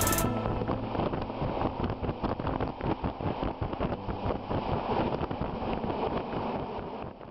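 Bergen Line passenger train running, heard from an open window: a rough rushing noise with rapid irregular wind thumps on the microphone, slowly fading.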